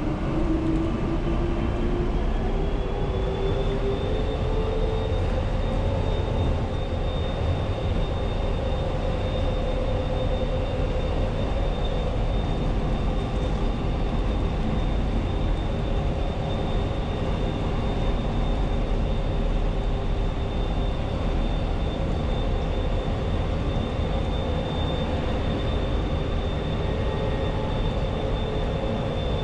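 Inside the car of the PHX Sky Train, a rubber-tyred Bombardier Innovia APM 200 automated people mover, running along its guideway with a steady low rumble. A motor whine rises in pitch over the first few seconds as the train gathers speed, then holds steady at cruising speed.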